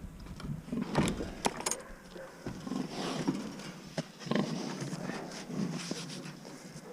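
Several short, rough calls from a farm animal, with a few sharp knocks in between.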